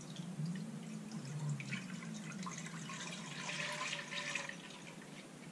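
Thick raw goat milk poured in a steady stream from a glass mason jar into a pot, splashing as it fills, dying away about four and a half seconds in.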